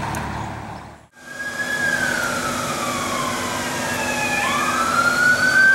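Police siren wailing, its pitch sliding slowly down and then rising again. It starts about a second in.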